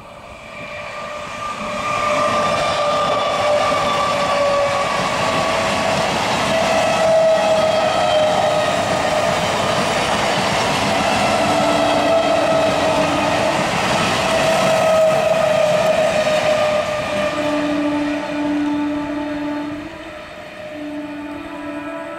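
Electric multiple unit local train running past at speed: a steady rumble and rail clatter that build up over the first couple of seconds and ease off late on, with a whine that drifts down in pitch as it goes by. Short horn blasts sound about halfway through and again in the last few seconds.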